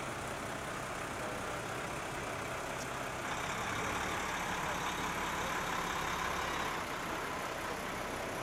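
Diesel engine of a Mack tipper truck running at low speed as the truck and trailer roll slowly past. The sound gets a little louder in the middle as the truck goes by.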